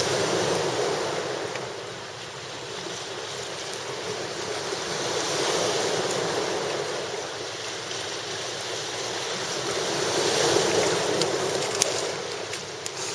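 Sea waves washing on the shore, the rush swelling and fading about every five seconds. A few sharp clicks come near the end.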